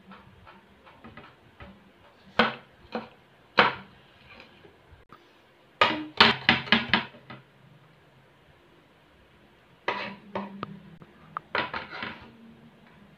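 Kitchen knife chopping garlic on a wooden cutting board: a few single knocks, then a quick run of six or so chops about six seconds in, and two shorter runs of chops near the end.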